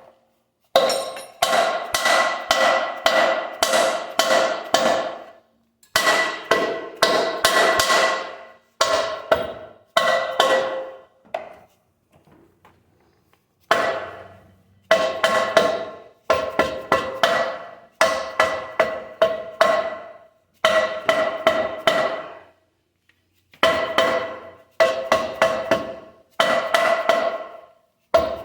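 Repeated hammer blows on a ringing metal part, in runs of several quick strikes separated by short pauses.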